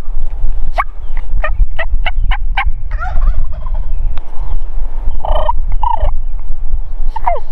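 Merriam's wild turkey gobbling from its roost: a quick rattling run of notes about a second in, then further gobbles later, over a steady low rumble.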